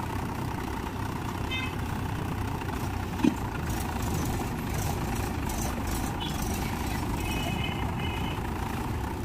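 Mahindra tractor's diesel engine running steadily as it works a front loader, with one short thump about three seconds in. A few short high beeps sound twice, once early and once later.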